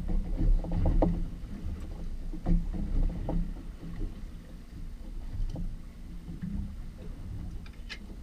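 Water slapping against the hull of a boat at sea: an uneven low rumble that swells and dips, with occasional knocks.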